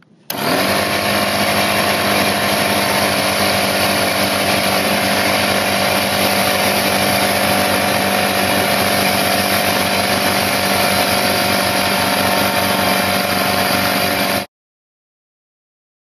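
Porter-Cable 135 psi pancake air compressor starting up, its pitch rising briefly, then running steadily and very loud, about 100 dB on a meter, before cutting off suddenly near the end.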